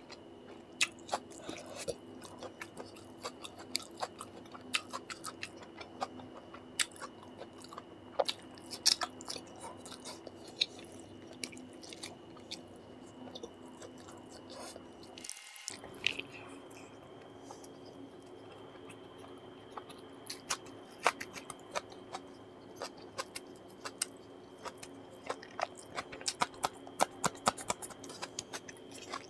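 Close-miked chewing and wet mouth clicks of a man eating rice and chicken liver and gizzard curry by hand, many short sharp smacks in an uneven run. A steady faint hum sits underneath, and the whole sound drops out for a moment about halfway through.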